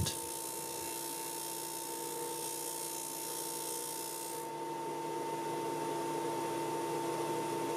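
Porter-Cable disc sander running with a steady motor whine while a laminate strip's edge is ground against the abrasive disc. The high grinding hiss stops about halfway through as the piece is lifted off, and the motor keeps running.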